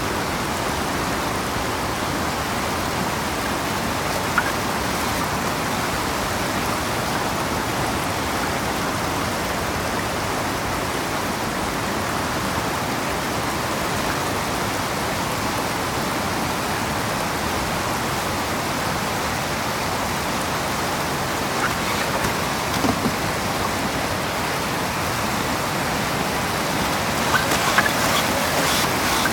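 River rapids rushing steadily over granite rock. A few short sharp clicks or knocks cut through the rush, most of them close together near the end.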